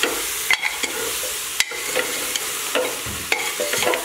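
Goat meat and ground spices sizzling as they fry in an open aluminium pressure cooker, with a steady hiss. A metal ladle stirring the pot scrapes and clinks against its sides about four times.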